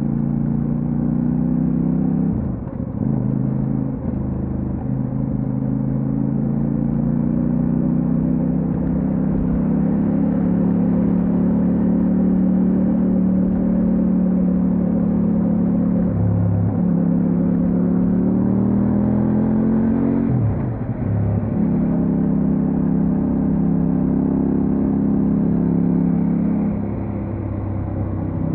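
Kove 800X Pro motorcycle's parallel-twin engine running under way, its pitch climbing and easing with the throttle. Several brief dips in the engine note where the rider changes gear.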